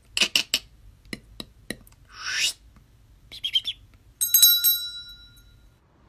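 Sound effects: a quick run of short pops and clicks, a whoosh that rises in pitch about two seconds in, a brief chirp, then a bell rings once just after four seconds and fades away.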